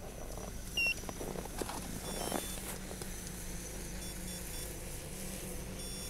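Short electronic beeps from a radio-controlled helicopter's electronics being switched on and readied for flight: one sharp high beep about a second in, a quick run of short beeps around two seconds in, and fainter beeps near the four-second mark, over light handling noise.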